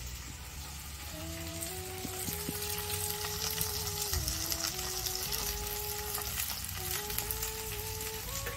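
Chopped okra frying in oil in an iron wok over a wood fire: a steady sizzle. A simple melody of background music plays over it from about a second in.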